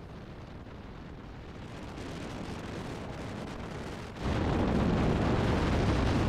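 Wind and road noise on the mic of a moving motorcycle, a steady rushing rumble that jumps suddenly much louder about four seconds in.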